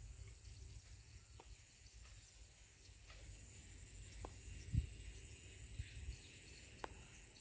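Faint outdoor ambience: a steady high-pitched insect buzz over low wind rumble on the microphone, with a few faint clicks and one short thump near the middle.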